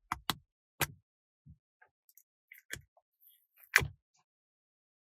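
Half a dozen sharp clicks and taps of small hard objects being handled, spaced irregularly. The loudest comes a little under four seconds in.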